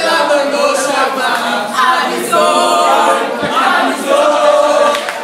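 A group of young people's voices singing and shouting together.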